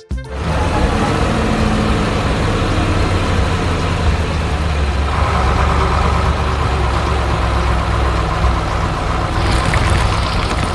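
Cement mixer truck's heavy engine running steadily with a deep rumble, starting suddenly. A higher steady note joins about halfway through, and a hiss comes in near the end.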